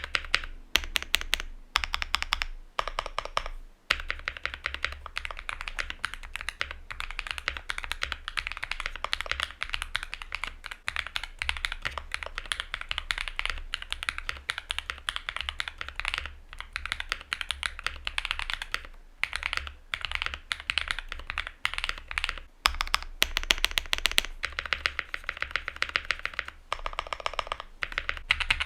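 Fast, continuous typing on a Luminkey65 custom mechanical keyboard with an FR4 plate and lubed, filmed switches: dense clacky keystrokes with a few brief pauses.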